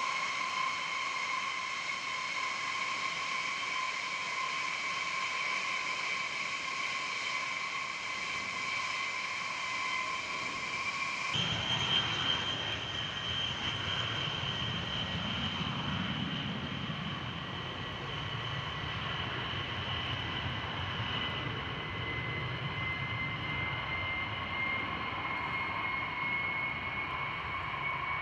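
B-52H bomber's TF33 turbofan jet engines running with a steady high whine. After a cut about eleven seconds in, a deep rumble joins the whine as a B-52H makes its takeoff roll at full thrust, and the rumble swells a few seconds later.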